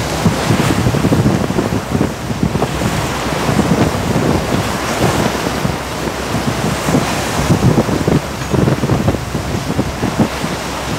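Strong wind buffeting the microphone in irregular gusts on an open ship's deck at sea, over a steady rush of sea and wind noise.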